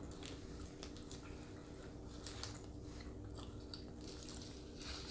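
Faint chewing and biting of food, with scattered soft mouth clicks over a low steady hum.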